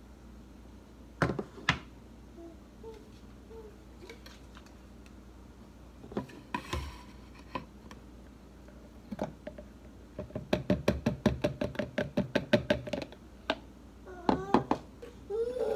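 Hard plastic knocks and clicks as a NutriBullet Baby blender cup is handled and upended into a plastic sippy bottle, then a quick run of taps, about six a second for two or three seconds, as the cup is knocked against the bottle to shake out the thick puree. A few short voice sounds come near the end.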